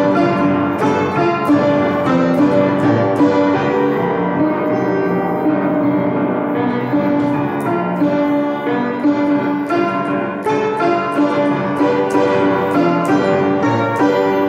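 Piano music, a continuous run of struck notes and chords.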